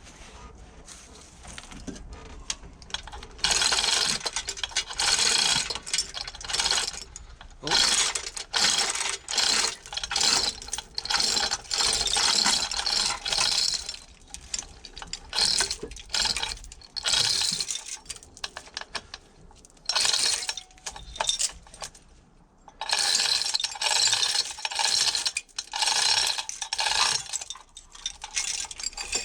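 A hand-operated ratchet clicking in repeated runs of fast clicks, stroke after stroke with short pauses between. It starts about three seconds in, with a longer pause past the middle.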